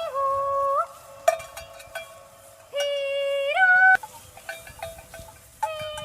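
Slow folk melody in the background music: long held notes that slide upward at their ends, with short pauses between phrases. Two sharp clicks about one and four seconds in.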